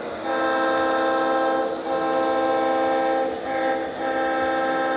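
HO scale GP38-2 model locomotive's Tsunami2 sound decoder playing a multi-chime diesel air horn through its onboard speakers. The horn sounds the grade-crossing signal: long blasts with short breaks between them.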